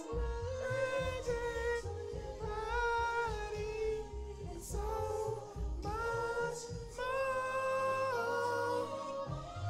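A singer's wordless, sustained notes ("ooh"-style runs) stepping up and down in pitch, over an R&B backing track with a deep bass line.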